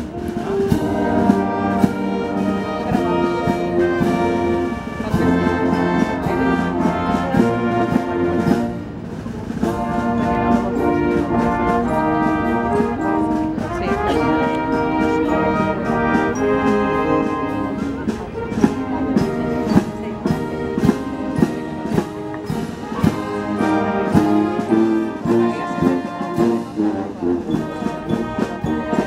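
Brass band playing a Protestant hymn: full sustained brass chords over a sousaphone bass, with drum strokes, pausing briefly between phrases.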